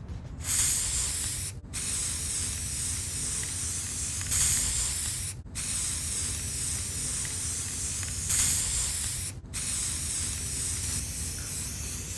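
Aerosol can of matte black spray paint spraying in three long hissing passes of about four seconds each, with short breaks between; each pass starts a little louder.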